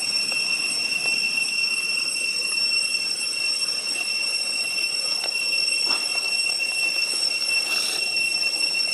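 Steady high-pitched drone of cicadas: one unbroken whine with a higher overtone, and a few faint clicks now and then.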